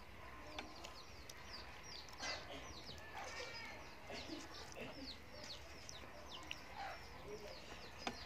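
Birds chirping: many short, quick, falling chirps, with a few lower calls around the middle and a sharp click near the end.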